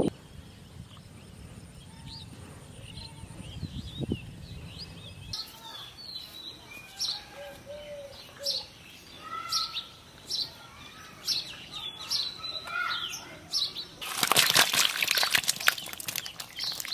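Birds chirping and calling over and over. About fourteen seconds in, loud splashing starts as live climbing perch and other fish thrash in shallow muddy water.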